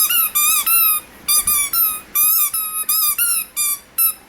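Rubber squeaky ball toy squeezed repeatedly in a Rottweiler puppy's jaws: about a dozen quick squeaks in short runs, each rising and falling in pitch, with brief pauses between runs.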